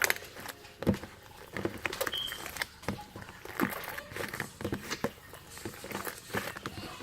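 Slime being squished and worked by hand: irregular wet clicks and crackles, several a second.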